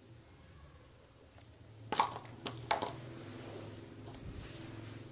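Hands squishing and stretching freshly made homemade slime. A few sharp clicks and squelches come about two seconds in, followed by a soft crackling hiss, over a steady low hum.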